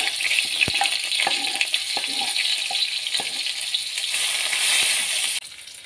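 Ground soto spice paste with shallots and garlic sizzling in hot oil in a wok, with a metal spatula scraping and tapping against the plate and wok several times. The sizzle cuts off suddenly near the end.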